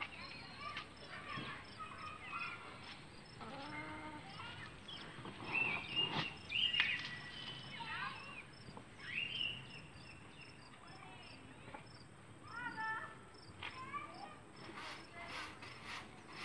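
Chickens calling and clucking in short, bending calls, over a faint, even chirping of insects. Near the end, a stick broom scratches across the floor in quick strokes.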